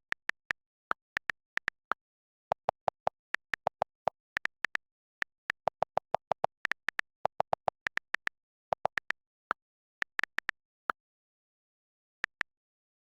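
A rapid, uneven series of short electronic blips, some high-pitched and some lower, with dead silence between them; they thin out and stop shortly before the end.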